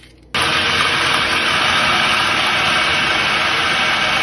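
Electric food chopper starting abruptly a moment in and then running at steady high speed, grinding raw chicken cubes, bread, garlic and egg into a paste.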